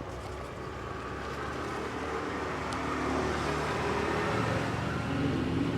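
Road traffic with a motor vehicle's engine running, slowly growing louder.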